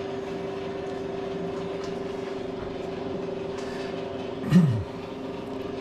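Cincinnati No. 2 tool and cutter grinder's electric motor running with a steady hum and one constant tone, driving the belt-driven work head. About four and a half seconds in, a brief louder low sound drops in pitch.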